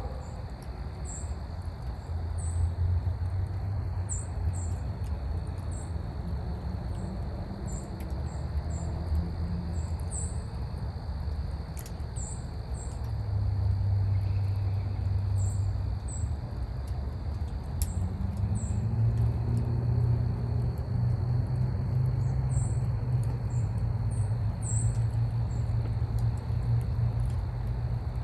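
Outdoor ambience: a low engine-like rumble, like a distant vehicle, swells about halfway through and again later, under many short, high chirps.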